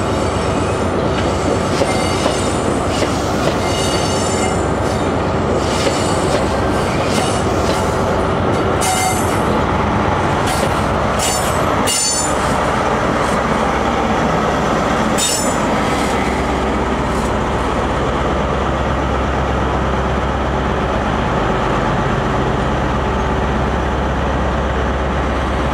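Great Western High Speed Train: the Class 43 power car's diesel engine running with a steady drone, while the carriage wheels squeal and click over the rails as the train moves along the platform in the first half. Later the low engine hum of a standing power car carries on alone.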